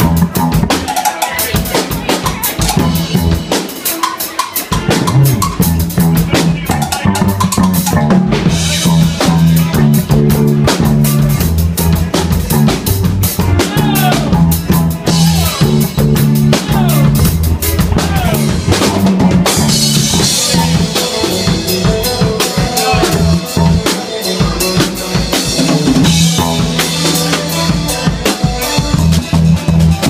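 Live band jamming loudly: a drum kit playing a steady beat, with electric bass joining about five seconds in, and electric guitar.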